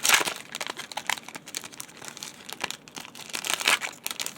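Plastic wrapper of a Panini Chronicles basketball card pack being torn open and crinkled by hand: a run of crackles, with louder rips right at the start and again about three and a half seconds in.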